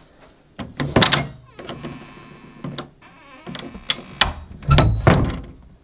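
Wooden interior door being worked by its knob: sharp clicks of the knob and latch, then a heavier thud about five seconds in as the door is pushed against its frame.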